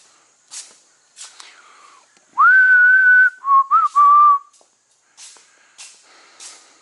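A person whistling briefly: one held note, then three short lower notes with a little upward flick.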